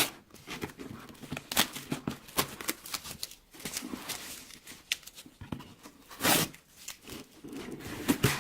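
Cardboard box being worked open by hand: irregular rustling, scraping and tearing of the packaging with sharp clicks, and a louder rip about six seconds in.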